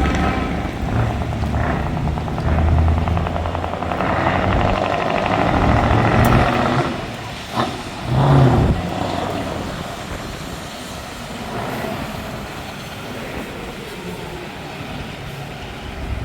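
Truck V8 engine with open exhaust pipes revving loudly for about eight seconds, with two short loud bursts near the middle, then settling to a lower, steadier rumble.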